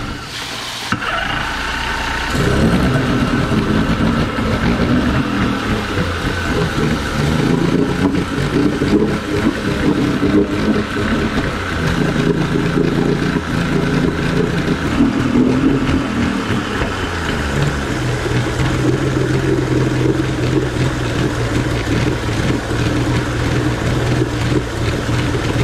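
Mercury 50 two-stroke outboard motor running on a test run, its lower unit in a water-filled tub. It picks up about two seconds in, its pitch wavers through the first half, and it settles into a steady idle in the last third.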